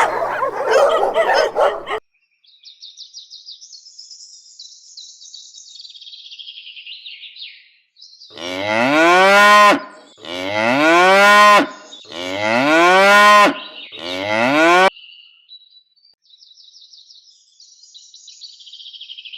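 A cow mooing four times in quick succession, each moo about a second and a half long, rising and then falling in pitch. Before and after the moos comes fast, high-pitched bird chirping.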